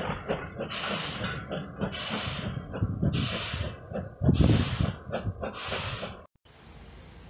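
Steam locomotive pulling away, its exhaust chuffing in hissing beats about once a second over the low rumble of coaches rolling on the track. The sound cuts off suddenly near the end.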